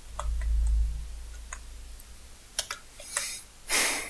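Scattered clicks of a computer keyboard and mouse as code is selected, copied and pasted. A low rumble fills the first second, and there is a short, louder rustling burst near the end.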